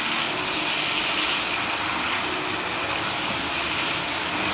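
Diced tomato and onion sizzling steadily in a hot frying pan with oil and a little water, being stir-fried with a silicone spatula.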